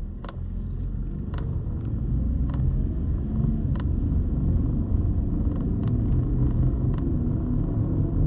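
Car driving with a steady low rumble from a damaged front wheel bearing, growing gradually louder as it goes, with a few faint ticks about a second or so apart.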